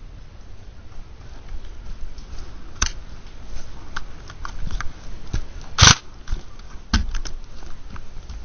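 Scattered sharp clicks and knocks over a low rumble, the loudest just before six seconds in and two more about a second later.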